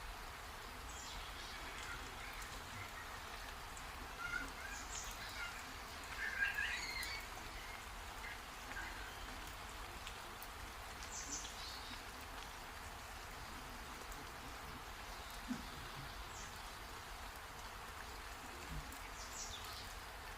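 Steady rain falling, with birds chirping and calling now and then. A cluster of calls about six seconds in is the loudest, and short falling whistles come several times.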